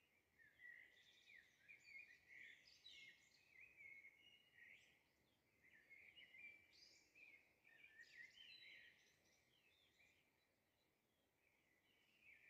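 Faint birdsong: many short chirps and quick whistled notes overlapping, thinning out near the end.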